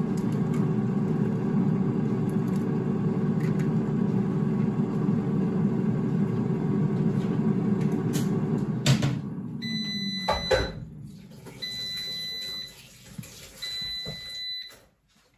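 COSORI air fryer's fan running steadily. About nine seconds in it cuts off with a click and winds down as the cook cycle ends. Three long high-pitched beeps follow, about two seconds apart, signalling that the timer has run out.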